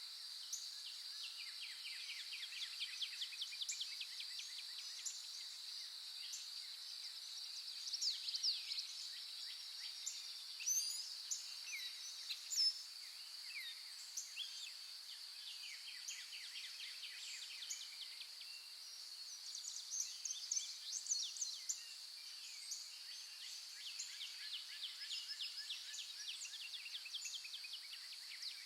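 Several wild songbirds chirping and singing rapid trills, with louder calls about 8, 11 to 12, and 20 to 21 seconds in. Underneath runs a steady high-pitched insect drone.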